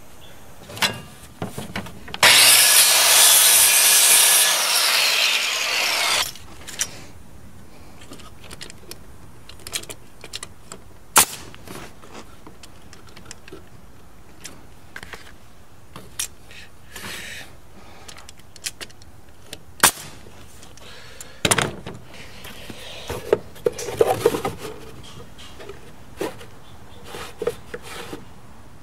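Small table saw cutting a short strip of wood for about four seconds, a loud even hiss that stops abruptly, then scattered knocks and rubbing as the cut wood pieces are handled and set together.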